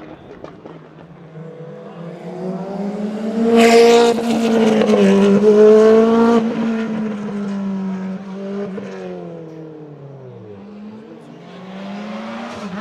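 Rally car engine at full throttle, coming closer and loudest around four to six seconds in, then its note drops and fades as it passes and drives away. Another rally car's engine starts building near the end.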